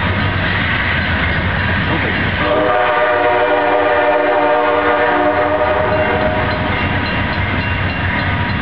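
Amtrak GE Genesis diesel locomotive sounding its multi-note air horn: a blast dies away in the first half second, then a long blast sounds from about two and a half seconds in for about four seconds. Under it runs the steady low rumble of the diesel engine and the moving train.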